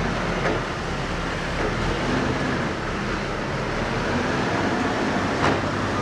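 Construction-site machinery noise: a steady mechanical rumble and clatter of heavy equipment, with a few sharp knocks, the sharpest about five and a half seconds in.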